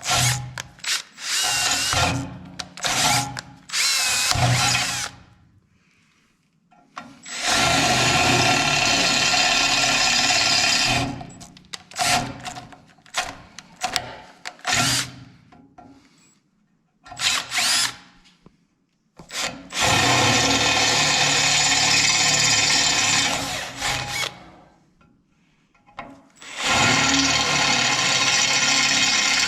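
Electric drill boring 5/16-inch tap-drill holes for a 3/8 tap into a steel frame. It runs in a few short bursts at first, then in three long runs of several seconds each, with short pauses between them.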